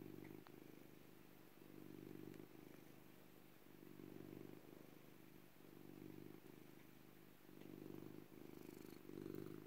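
Domestic cat purring, faint and even, swelling and fading with each breath about every two seconds.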